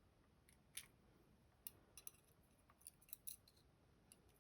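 Faint, light metallic clicks and taps of tiny lock parts being handled: driver pins and springs are being taken out of a dimple lock's housing during disassembly. There are about six scattered clicks.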